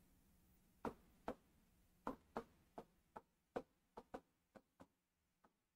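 About a dozen faint, irregular clicks and taps of a stylus pen on a tablet screen during writing.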